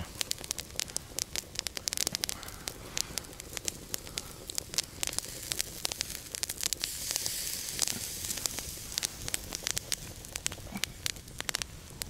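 Campfire crackling with many sharp pops, and a steady hissing sizzle that swells for several seconds in the middle: steak searing on a hot grill grate over the fire.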